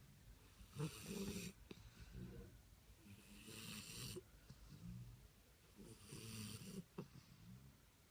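English bulldog puppy snoring, three snores about two and a half seconds apart, with quieter breathing between.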